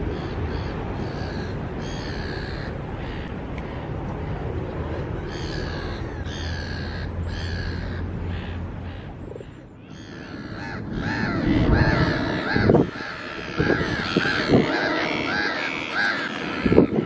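Birds calling repeatedly over a steady low traffic hum. About ten seconds in the sound changes to busier, louder calling with wind buffeting the microphone in gusts.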